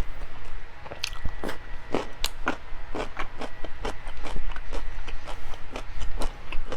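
Close-up mouth sounds of someone chewing food: many short, irregular wet clicks and smacks.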